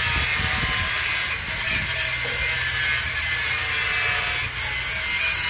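Stick-welding arc on steel rebar, a steady hiss with a few brief breaks.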